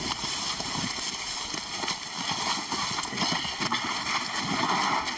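Several people walking and scuffing through dry grass while carrying a heavy load, with irregular footsteps, rustling and knocks.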